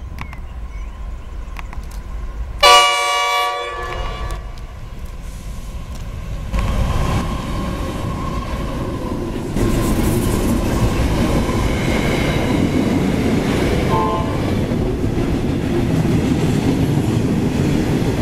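Three NR class (GE Cv40-9i) diesel-electric freight locomotives sound one loud horn blast of about a second, then run past close by, the engines and wheels growing louder as they pass, followed by loaded steel-coil wagons rolling by.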